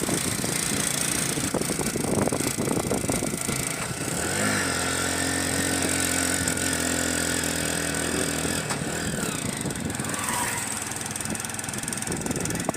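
Motorcycle engine running while riding, with wind and road noise on the microphone. Its note rises about four seconds in, holds steady for a few seconds, then fades back into the noise.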